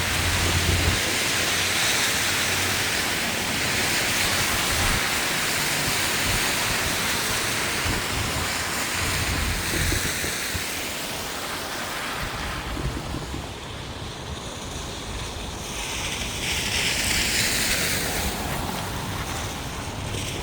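Rain and the hiss of tyres on a wet road, swelling and fading several times as vehicles pass.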